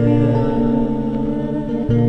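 Background music: a plucked guitar with bass, moving to a new chord near the end.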